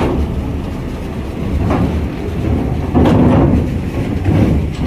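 Heavy trucks driving off a ferry ramp: a loud, continuous low engine rumble with several knocks and clanks as wheels go over the ramp.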